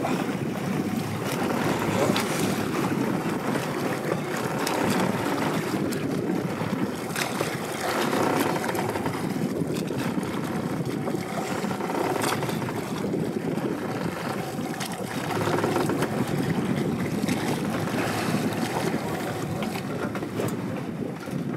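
Steady rumbling noise of a boat under way at sea, with wind on the microphone.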